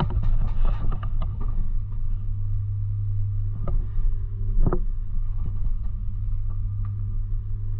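Airsoft gun shots: a quick cluster of sharp pops in the first second and two more single pops around the middle, over a steady low hum.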